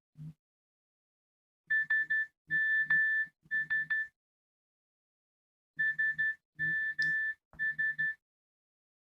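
Nokia Asha 210 ringtone playing: a high beeping pattern of quick triple beeps around a longer held tone, heard twice with a short silence between.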